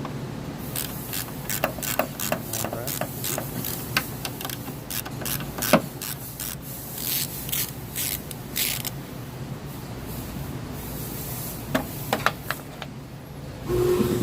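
Hand tool clicking and scraping on the two 10 mm bolts holding the fuel filler door assembly as they are unscrewed, in irregular runs of sharp clicks with one louder knock about midway.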